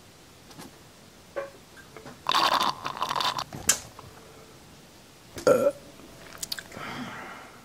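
Close-miked dubbed mouth sounds: a second-long noisy sucking sound about two seconds in, then a short, loud burp about five and a half seconds in, followed by softer mouth noises.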